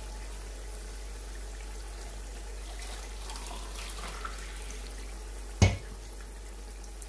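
Chicken pieces bhuna-frying in their masala and juices in a pot on a gas hob, a steady low bubbling sizzle. One sharp knock sounds about five and a half seconds in.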